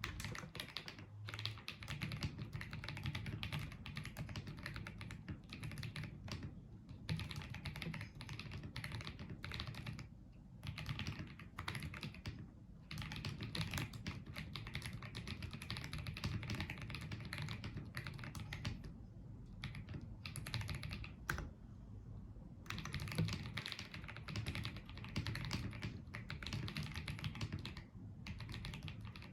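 Typing on a Tecware Spectre 75 mechanical keyboard with Cocoa Brown switches: fast runs of key clicks and clacks, broken by several short pauses.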